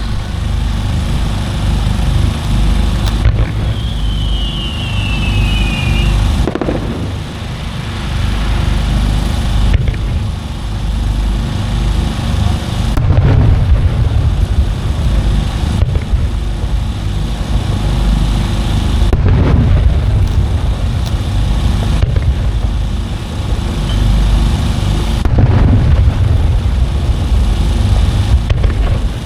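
Aerial fireworks shells going off continuously with a deep rolling rumble, heavier booms landing about every six seconds. A whistle falling in pitch sounds about four seconds in.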